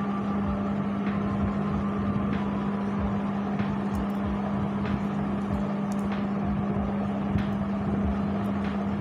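A steady low hum over a steady background noise, with faint light clicks every second or so.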